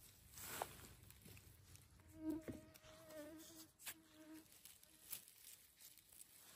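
A flying insect buzzing close by: a wavering hum that starts about two seconds in and fades after a couple of seconds. A few faint snaps and rustles come with it.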